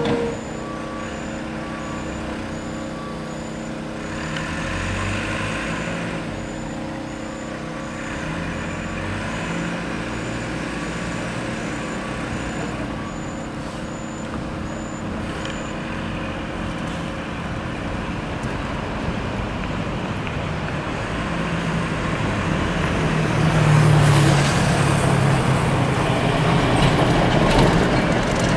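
Vehicle engines running at a night road-works site, with a steady low engine hum and a faint high beep repeating through the first half. Near the end, engine noise swells as motorcycles ride up and pass; this is the loudest part.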